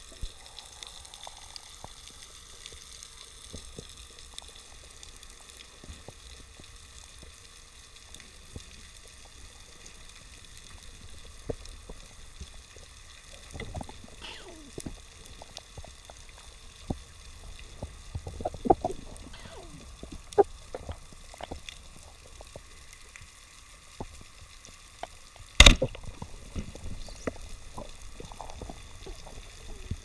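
Underwater ambience heard through a submerged camera housing: a low steady rush scattered with short clicks and crackles. The clicks grow busier in the middle, and one loud, sharp click comes about three-quarters of the way through.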